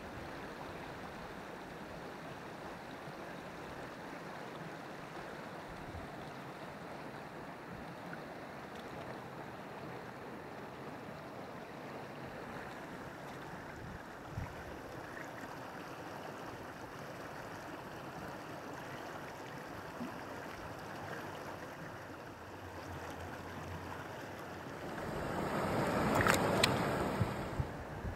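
Small mountain torrent running steadily over rocks and through shallow pools. Near the end the rush swells louder for a few seconds, with a few sharp knocks in it.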